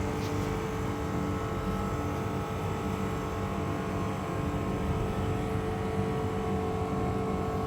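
Air-conditioning unit running: a steady mechanical hum with several steady tones over a low rumble.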